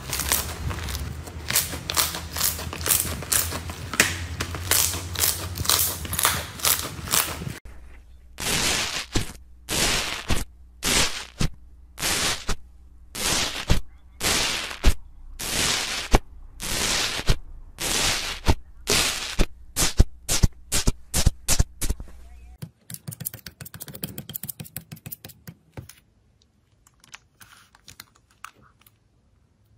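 Crunchy slime crackling densely as it is kneaded by hand. Then a run of loud, separate crunches about once a second as a metal tool presses into beaded slime. Near the end, faint crackles and squishes as a slime-filled bag is squeezed.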